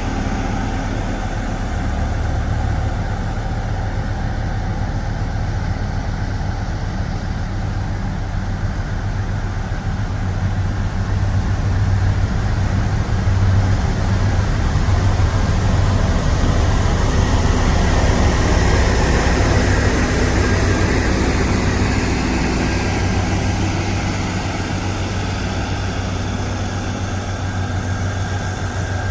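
Motor grader's diesel engine running steadily with a deep hum, getting somewhat louder from about twelve to twenty-two seconds in, then easing back.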